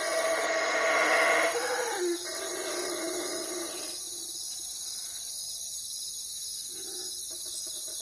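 Night forest ambience: a drawn-out animal call of about two seconds at the start and a fainter, shorter call near the end, over a steady high hiss.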